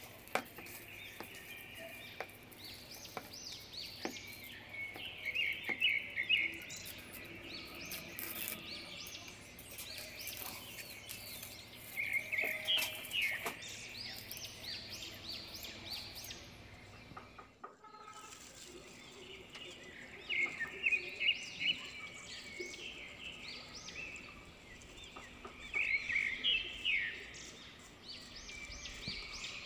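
Small birds chirping in repeated bursts of quick, high calls every few seconds, over a low steady background hiss, with a few faint clicks.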